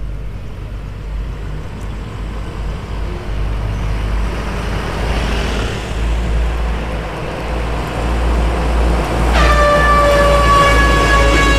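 A dump truck approaching with a low engine rumble and road noise that grow louder. Near the end its ship-style air horn sounds one steady, held tone.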